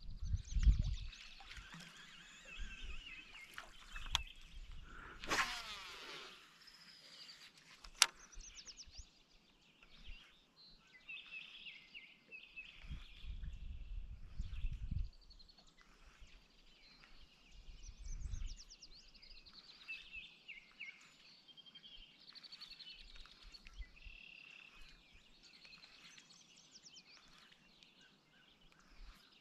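Songbirds singing and calling in a chorus of short chirps and trills, with a few low rumbles and a single sharp click about eight seconds in.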